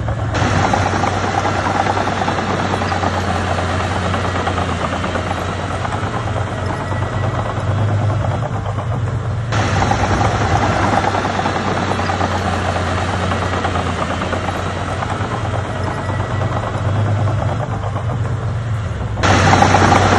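Crawler bulldozer's diesel engine running steadily with a dense rattling clatter over it. The upper part of the sound shifts abruptly about every ten seconds.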